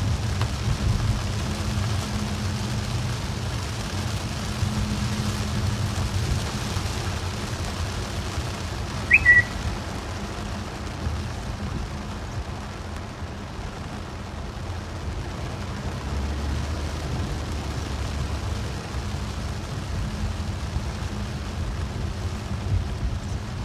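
Steady car-interior noise while driving on a rain-soaked road: low engine and road rumble with the hiss of tyres and rain. About nine seconds in comes a single brief high-pitched chirp.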